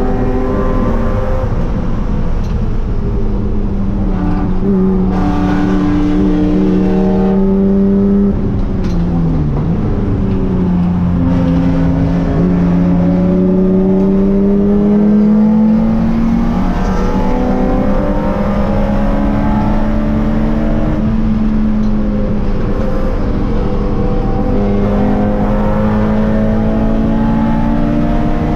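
In-car sound of a Spec3 BMW E36 race car's straight-six engine running hard under racing, its pitch climbing through each gear and stepping down at every shift. About nine seconds in, the engine note drops sharply as the car slows, then climbs again as it accelerates.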